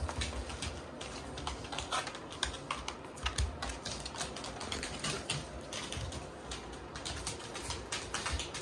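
Shiba Inu puppies' claws clicking and pattering irregularly on a hard wood-look floor as they scramble around and tug at a big plush toy, with soft thuds of the toy shifting.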